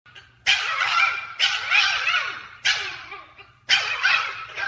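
A dog giving four loud, drawn-out barks, each starting suddenly and trailing off over about a second.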